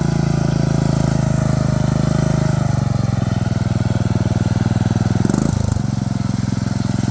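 Poulan XT riding mower engine running hard at full throttle under load, pulling the mower out of swamp mud. The engine note drops about two and a half seconds in and changes again about five and a half seconds in.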